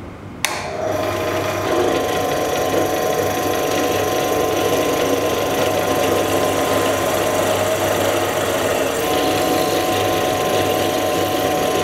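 Benchtop drill press switched on with a click about half a second in; the motor spins up over about a second and then runs steadily with a whine while the bit drills into a thin metal plate.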